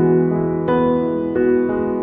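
Background music: a gentle keyboard melody, with new notes struck about every half second and left to ring.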